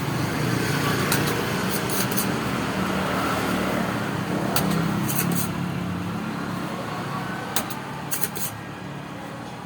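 Low engine rumble of a passing road vehicle that swells early and then fades away, with several sharp clicks scattered through it.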